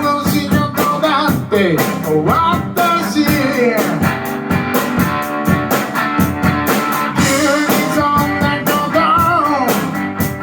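Rock band playing an instrumental passage: guitar lines with bends up and down over a steady drum beat.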